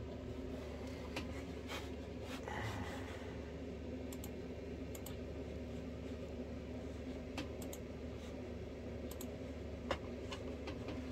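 Computer mouse clicking about a dozen times at irregular intervals, over a steady low hum.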